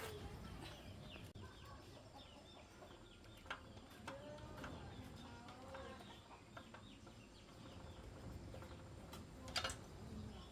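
Faint bird calls, short and pitched, most of them in the middle of the stretch, over a low background rumble, with a sharp click near the end.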